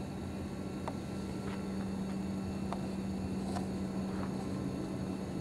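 Electric-converted 12-foot Telemaster RC airplane in flight: the steady, even-pitched drone of its 20x12 wood propeller driven by a Turnigy HXT 63-64-B 230Kv brushless outrunner motor. A few faint short clicks sound over it.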